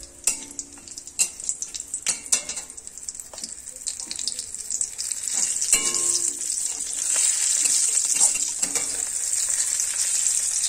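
Green chillies, curry leaves and whole spices sizzling in hot mustard oil in a metal kadai, stirred with a metal spatula that scrapes and clicks against the pan. The sizzle builds and becomes louder and steady in the second half.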